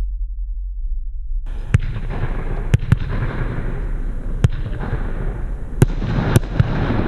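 A 20-shot, 30 mm consumer fireworks battery (Heron PSP 1-21) firing. About a second and a half in, after a low hum, a crackling hiss starts, and sharp shots and reports go off irregularly, roughly one a second, some in quick pairs.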